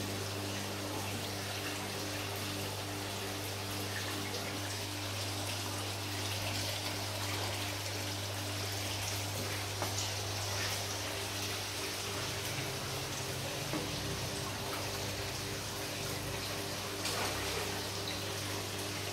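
Water trickling and splashing steadily, over a constant low hum with faint higher overtones.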